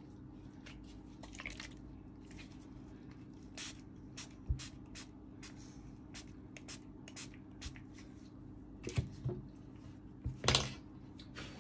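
Irregular small clicks and taps from tools and phone parts being handled on a workbench during a phone repair, with two louder knocks near the end, over a steady low hum.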